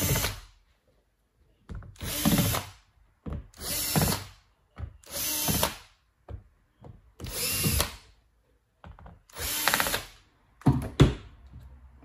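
Cordless drill/driver undoing the bottom-cover screws of a laptop, with its motor whirring in about six short runs of under a second each. A few sharp clicks come near the end.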